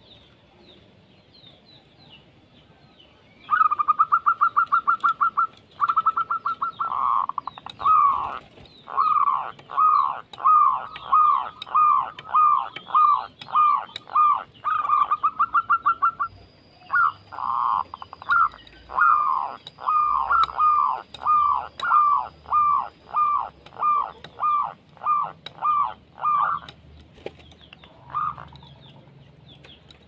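Zebra dove song: after a quiet start, fast rattling trills break in, followed by long runs of short downward-sliding coos, about two a second, ending in a few scattered notes near the end.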